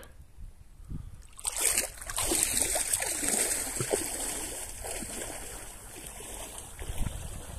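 Shallow water splashing and sloshing close to the microphone. It starts about a second and a half in and goes on irregularly, easing off toward the end.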